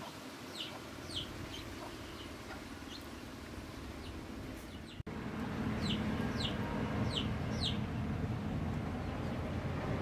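Birds chirping: short, high notes that fall in pitch, a few at a time, with a steady low background hum that gets louder about halfway through.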